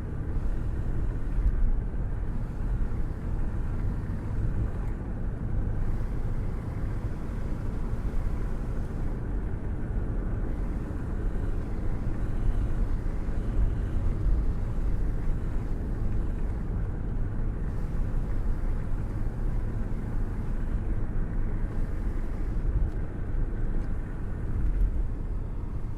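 Wind buffeting and road rumble from a car cruising at steady speed, with a hand held out of the open window. The noise is steady, heavy and low, and fluctuates constantly.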